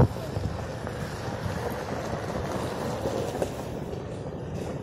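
Steady rustling and swishing of dense undergrowth as a riding elephant wades through it, with one thump at the very start.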